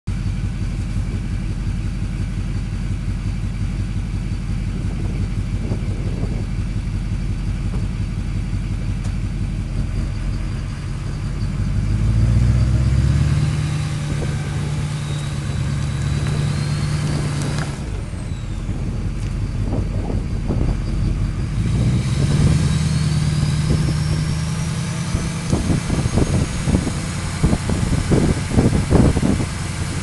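2005 Duramax LLY 6.6-litre V8 turbodiesel running, revved up and held twice, about 12 and 22 seconds in. A thin turbo whistle from its Garrett variable-vane turbocharger rises in pitch as it spools. In the last few seconds a choppy, uneven low rumble comes in.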